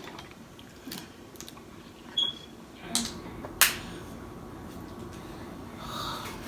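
A few sharp clicks and snaps, the loudest about three and a half seconds in: snow crab leg shells being cracked and handled while eating.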